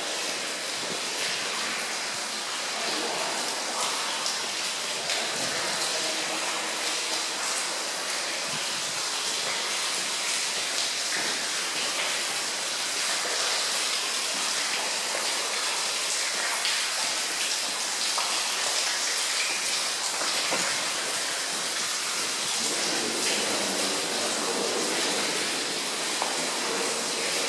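Steady rushing hiss of water dripping and running inside a rock tunnel, with footsteps on the wet floor.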